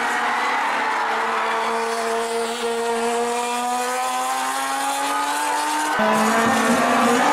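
Racing car engines at high revs, pitch climbing slowly as the car accelerates, with tyre squeal as a car slides through a corner on the damp track. About six seconds in, the sound cuts to another, slightly louder engine note.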